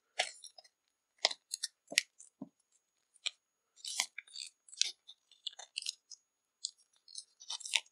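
Cardboard and paper packaging crinkling and rustling, a string of short irregular crinkles and clicks as a watch band is pressed into its cardboard holder and the card is handled.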